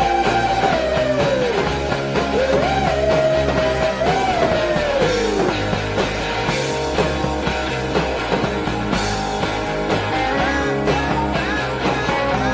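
Background rock music with guitar and a gliding, sung-sounding melody line over a steady full band.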